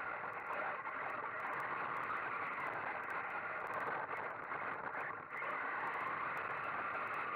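Steady noisy rush of a radio-controlled buggy driving, heard through its onboard camera: tyre and drivetrain noise over paving and grass, with no engine note, dipping briefly about five seconds in.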